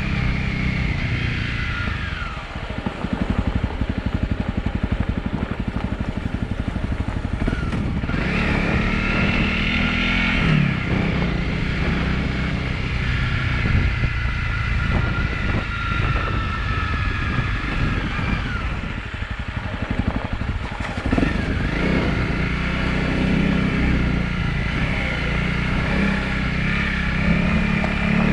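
Honda CRF250 Rally's single-cylinder engine running under way, rising and falling in pitch with throttle and gear changes. It eases off briefly about two seconds in and picks up again, while the bike rides on a gravel track.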